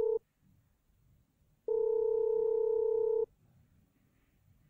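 Long, steady beep tones from a BLUEBOX20 encryption headset as it switches a call into encrypt mode: the end of one beep right at the start, then a second beep about a second and a half long starting nearly two seconds in.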